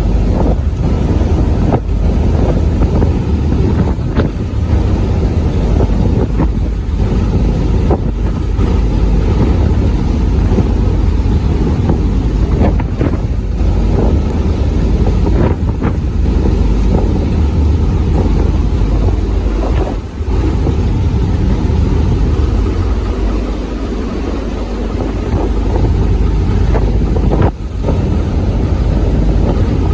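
Wind buffeting the microphone: a loud, low rumble that is steady apart from a couple of brief dips.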